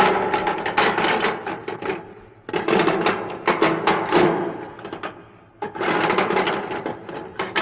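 Haunted-house sound effect from a Halloween record: bursts of rapid clattering and knocking, in three runs of two to three seconds each, separated by brief lulls.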